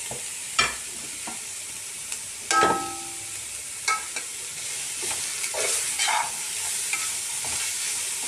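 Julienned carrots and green capsicum sizzling as they stir-fry in oil in a metal pot, with a spatula scraping and knocking against the pot now and then. One knock about two and a half seconds in rings briefly.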